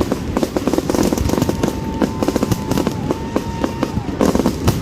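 Fireworks going off in quick succession: a dense stream of sharp crackles and bangs, with a single held whistle-like tone running through the middle.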